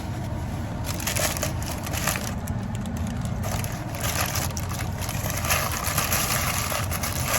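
Close-miked chewing and crunching of food, in two spells of crackling over a steady low rumble.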